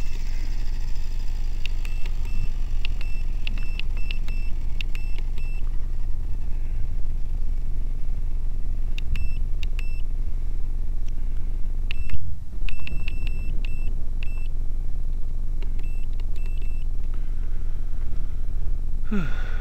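Radio-control transmitter beeping in several quick runs of short high beeps as its buttons are pressed, typical of stepping the helicopter's gyro gain setting, over a steady low rumble. A brief louder swell comes about twelve seconds in.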